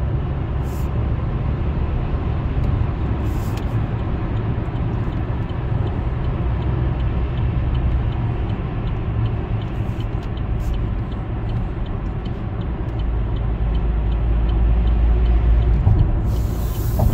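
Road and engine noise of an Opel Insignia 1.6 diesel cruising on a motorway, heard from inside the cabin: a steady low rumble that swells a little near the end.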